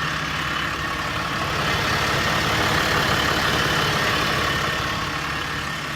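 6.7-litre Cummins diesel engine of a Ram 4500 idling steadily, with a hiss that swells in the middle and eases off.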